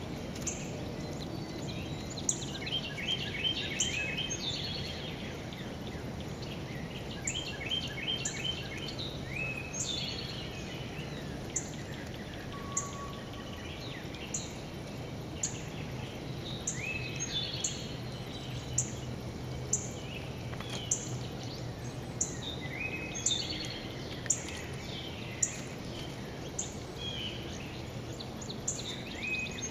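Songbirds singing and calling outdoors: short high chirps about once a second and repeated runs of quick notes, over a steady low background hum.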